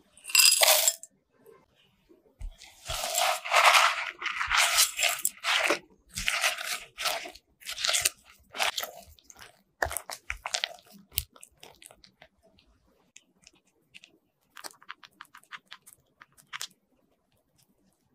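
Crushed Oreo cookie crumbs tipped into a glass bowl in a short burst. Then a silicone spatula folds them into thick chocolate cream-cheese mixture in a run of crunchy scraping strokes that die away after about eleven seconds, followed by a few faint light ticks.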